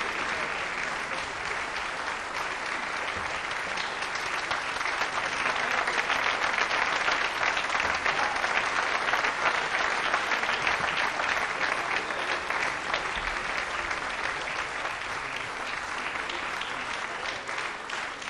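Theatre audience applauding at a curtain call. The clapping swells about a third of the way in and eases off toward the end.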